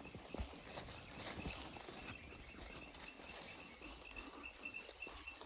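Insects chirping in the bush: a high, evenly repeating chirp over a steady high hiss, with a few soft footsteps on a path.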